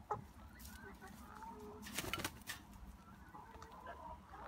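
Hens giving soft, low calls, with a few brief rustles and scratches in straw about two seconds in.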